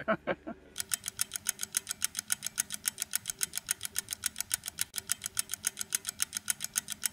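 Clock-ticking sound effect: fast, even ticks, several a second, starting just under a second in and marking a time skip.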